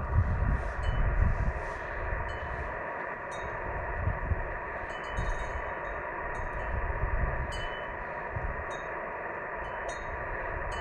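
Ham radio transceiver's speaker hissing with band noise, no station coming through, the hiss narrowed to a telephone-like band as on a sideband receiver. Light metallic ringing strikes tinkle above it now and then, over a low gusty rumble.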